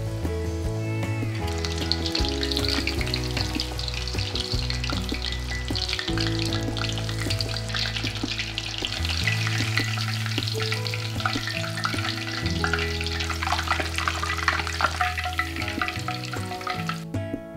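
Panko-breaded chicken katsu deep-frying in hot oil: a dense crackling sizzle that sets in about a second and a half in and dies away near the end.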